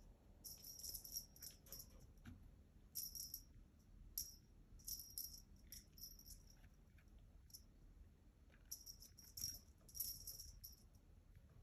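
A small rattle toy rattling in short, irregular bursts, a dozen or so, some louder than others.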